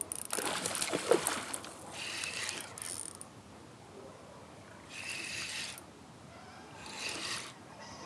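Fishing reel clicking and whirring in several short bursts while a hooked smallmouth bass is fought on the line, loudest in the first two seconds.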